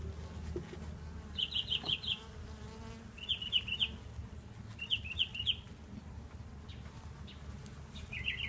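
Honeybees buzzing around an opened hive, a steady low hum. Over it a songbird sings short phrases of four or five quick high notes, four times, about every two seconds.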